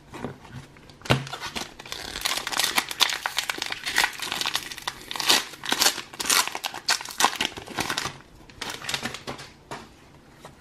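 Foil wrapper of a Pokémon trading card booster pack being torn open and crinkled by hand: a dense run of crackling starts about a second in and thins out over the last couple of seconds.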